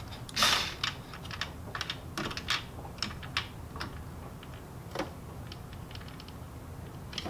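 Irregular light clicks and taps of a screw and screwdriver bit against the printer's metal and plastic frame while a screw is worked into place by feel, with a short rustle about half a second in.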